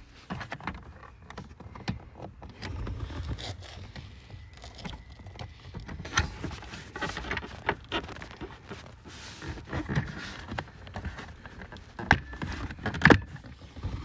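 Plastic blower-motor housing parts and clips being handled and pushed into place: scattered clicks and knocks over rustling, with one sharper knock near the end.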